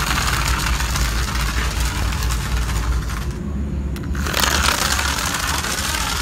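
Small DC motor of a homemade toy car running, its plastic bottle-cap wheels rattling and scraping over concrete. The noise stops about three seconds in and starts again about a second later.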